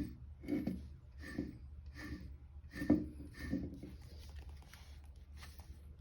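Nissan Roox kei-car engine running with a steady low hum and an irregular clattering knock roughly every second, fading to faint ticks near the end: the engine-room rattle abnormal noise of a car with about 200,000 km.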